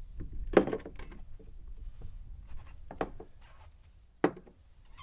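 Handling noise: a few sharp knocks with some rubbing in between, the loudest about half a second in and others about three and four seconds in.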